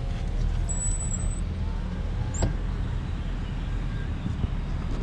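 Car engine running at low speed, heard from inside the cabin as a steady low drone, with a single sharp click about two and a half seconds in.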